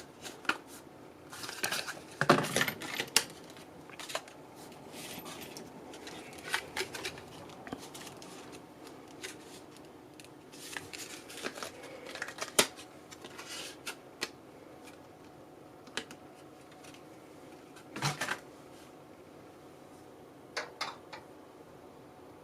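Scattered clicks, taps and rustles of hands handling computer parts and their plastic and cardboard packaging. A louder clatter comes about two seconds in, a single sharp click near the middle, and another short clatter near the end.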